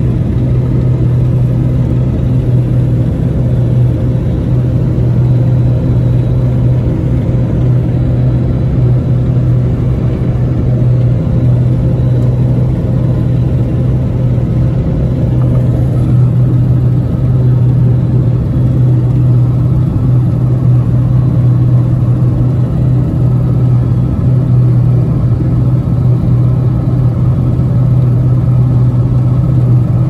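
New Holland TX68 Plus combine harvester running under load, heard from inside the cab: a loud, steady drone from its Iveco engine and threshing machinery.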